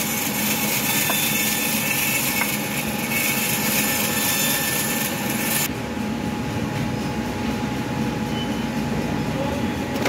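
Bandsaw mill running steadily: a loud mechanical din with a bright hiss and a few steady tones. A little over halfway through, the high hiss cuts off abruptly and a lower machine drone carries on.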